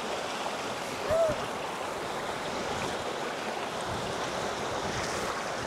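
Mountain creek water running over rocks, a steady rushing. A brief rise-and-fall note sounds about a second in.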